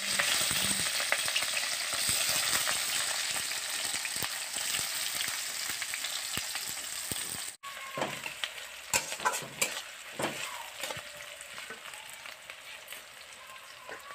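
Sliced onions and green chillies frying in hot oil in a metal wok: a loud, steady sizzle that slowly dies down. After a cut about halfway through the sizzle is quieter, and a metal spatula scrapes and clicks against the wok as it stirs.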